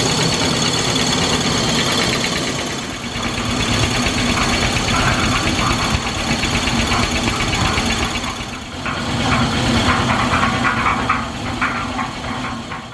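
Cushman Cub 3 HP single-cylinder engine running steadily at a fast, even beat, belt-driving a 1940s CMC Wonder concrete mixer.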